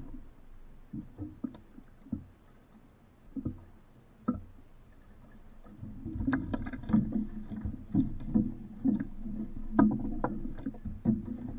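Water splashing and knocking against the hull of a small sailboat: a few separate knocks at first, then busier and louder from about halfway through.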